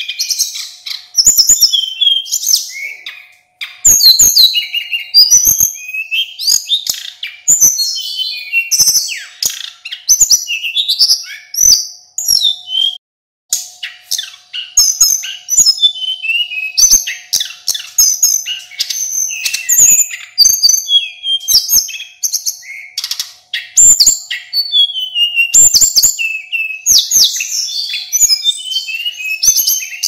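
Male sulingan gunung, a Cyornis blue flycatcher, singing in full voice: a near-continuous run of quick, varied, high whistled phrases that slide up and down, with one brief pause about halfway. A few sharp clicks and a faint steady hum sit underneath.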